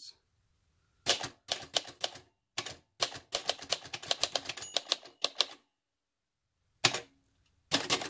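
Typebars striking the platen on a 1966 Singer Professional T-62 manual typewriter, a rebranded Royal Safari. The keystrokes start about a second in and come in a quick run for several seconds. After a pause of about a second, there are two more strikes near the end.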